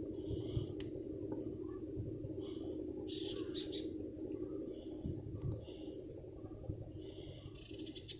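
Small birds chirping off and on, the busiest about three seconds in and near the end, with an insect's thin, high, wavering trill running throughout. Under them sits a steady low hum.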